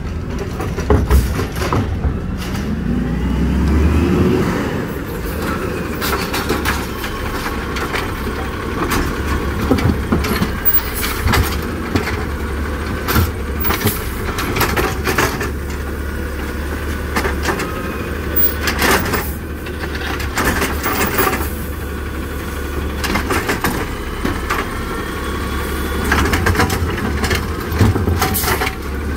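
Natural-gas Peterbilt 320 automated side-loader garbage truck running while its arm works the recycling carts: a steady engine hum, a rising whine about two to four seconds in as the engine revs to drive the hydraulics, and repeated knocks and clatters as carts are gripped, lifted and shaken out and recycling drops into the hopper.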